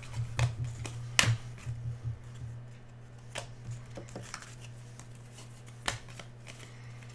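Football trading cards being handled and flipped through by hand: scattered sharp snaps and soft slides of card stock, the loudest snap about a second in, over a steady low hum.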